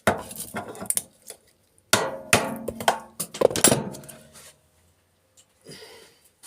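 Metal parts of a microwave being tapped and knocked loose, making a string of sharp metallic knocks and clangs with a brief ring. The knocks come in clusters and die away after about four and a half seconds.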